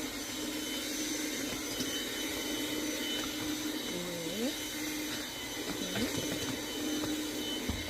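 Vacuum cleaner running steadily, a motor hum with a whine over the rush of air. Two short rising glides come about four and six seconds in.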